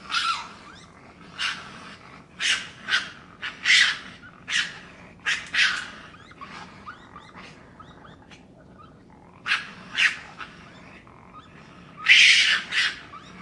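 Raccoon giving a series of short, harsh calls: about nine in quick succession, a pause, two more, then a louder, longer call near the end.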